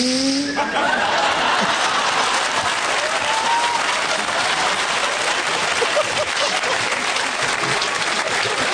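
Studio audience applauding, with a few cheers among the clapping. It breaks out suddenly about half a second in and then holds steady.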